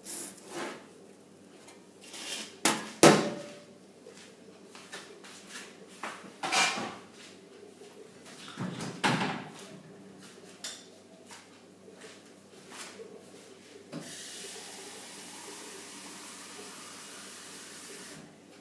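Kitchen vessels and utensils being handled: a series of knocks and clatters, loudest about three seconds in, followed near the end by a steady hiss lasting about four seconds.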